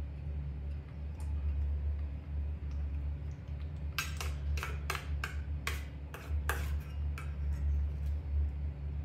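A plastic spoon clicking and scraping against a stainless steel bowl as yogurt is scooped up: a quick series of about eight sharp clicks over some three seconds, starting about four seconds in, over a steady low hum.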